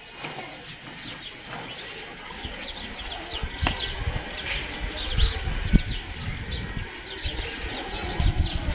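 Birds chirping in many short, quick falling calls, repeated over and over. A few dull low thumps come about halfway through and again near the end.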